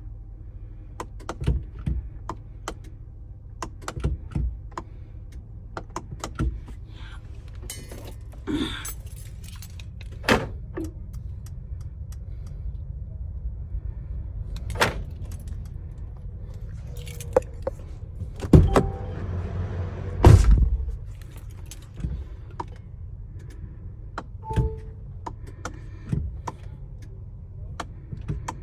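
Keys jangling and a string of scattered clicks and knocks as the ignition key of a 2022 Sprinter van is worked, with no starter cranking or engine firing: the van will not start. The loudest moment is a rustling knock about twenty seconds in.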